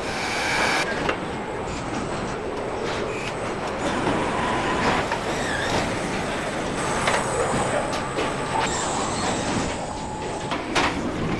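Car assembly-line machinery running: a steady mechanical din from robots and conveyors, with thin whining tones that come and go and a few sharp clicks.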